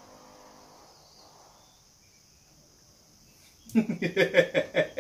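Quiet room tone with a faint steady high hiss for about three and a half seconds. Then a man's voice breaks in loudly, in short choppy bursts.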